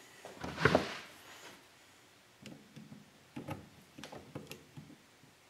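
Hand-fitting a circlip onto a motorcycle transmission output shaft clamped in a vise: light metallic clicks and clatter of the clip and gears being handled. A louder clatter comes about half a second in, followed by a few scattered sharp ticks.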